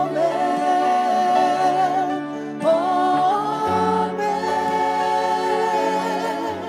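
Contemporary worship band singing long, held notes of "amen" with vibrato, over keyboard and acoustic guitar. One sustained phrase gives way to a second, higher one about two and a half seconds in.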